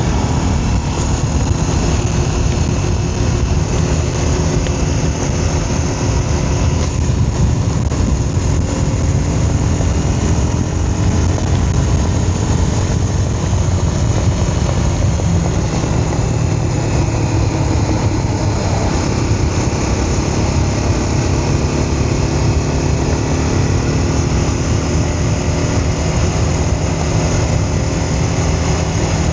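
Vehicle engine running steadily on the move, with road and wind noise, its pitch rising and falling gently with speed.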